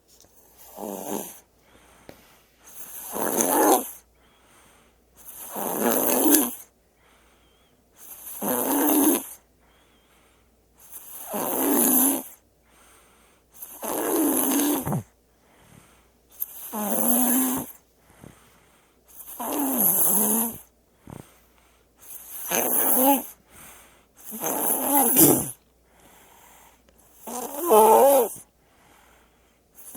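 A baby snoring: a steady run of snores, one every two and a half to three seconds, each about a second long, with quiet breaths between.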